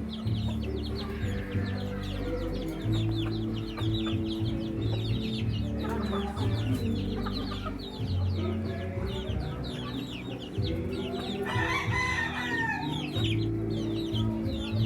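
A flock of chickens clucking and calling while crowding to feed, with a constant stream of short, high calls and a louder call about twelve seconds in.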